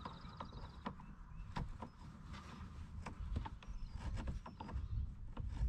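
Small ratchet wrench turning a bolt at a truck battery: light, irregular clicks and taps of the ratchet and metal against metal, over a low rumble of wind on the microphone.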